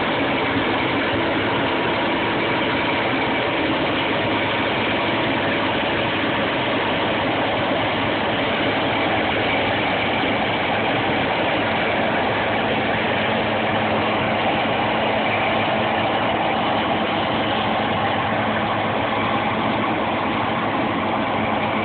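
Claas Lexion 550 combine harvester running steadily at work: a constant engine and machinery drone with faint steady tones, unchanging throughout.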